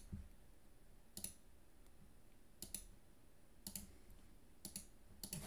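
Computer mouse clicking faintly: about half a dozen short clicks and quick pairs of clicks, spaced roughly a second apart.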